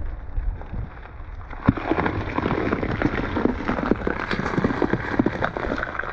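Car tire rolling over bell peppers and crushing them: a dense run of crunching, crackling snaps that starts a little under two seconds in, after a low rumble of the car creeping forward.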